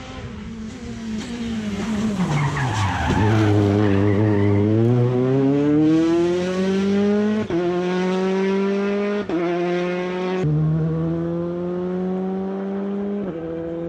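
Rally car braking into a corner with its engine note falling and the tyres skidding through the turn. It then accelerates hard away, the engine climbing with four quick upshifts.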